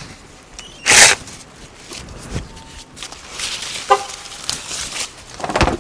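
A mulberry branch being cut with a compact cordless mini chainsaw: two short, loud bursts of noise, one about a second in and one near the end, with quieter noise between.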